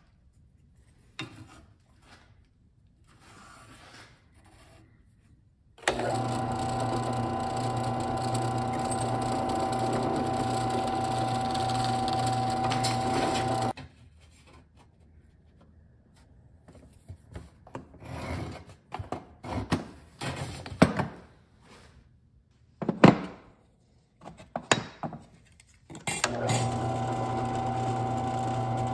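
Benchtop drill press motor running with a steady hum for about eight seconds, then scattered clicks, knocks and rubbing from materials being handled on a workbench; near the end the drill press starts again, boring into a small wooden block.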